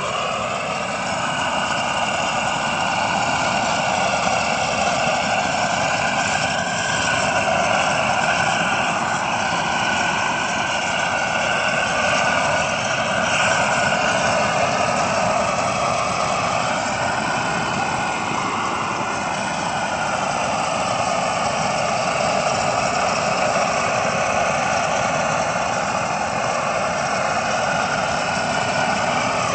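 Savage weedburner steam weed killer running steadily, with steam jetting from its lance onto the weeds.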